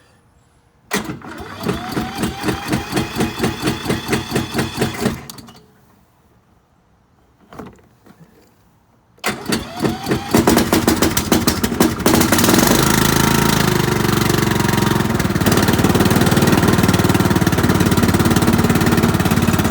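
Riding lawn mower's 535 cc engine cranked by its starter on a cold start, turning over at about four pulses a second for some four seconds without catching. Cranked again about nine seconds in, it catches within a second and settles into a steady run.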